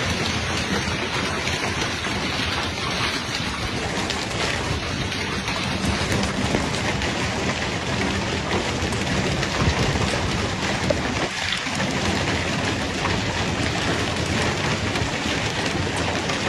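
Heavy rain pouring down steadily, a dense, even hiss of falling drops.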